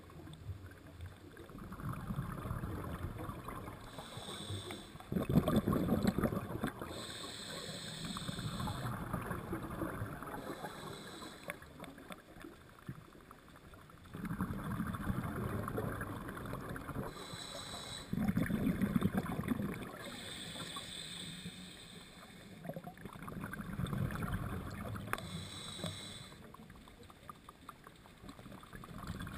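Scuba regulator breathing underwater: the hiss of each inhale through the regulator alternating with the bubbling rush of exhaled air, in a slow cycle that repeats every several seconds.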